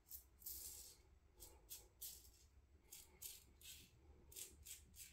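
Parker semi-slant safety razor scraping stubble through shaving lather in a quick run of short strokes, about a dozen, each a faint, brief rasp.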